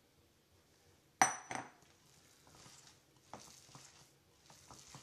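A small glass bowl knocks twice against a large glass mixing bowl with a brief high ring, then a gloved hand kneads a ground chicken and chopped mushroom filling in it: soft, irregular squishing with light taps on the glass.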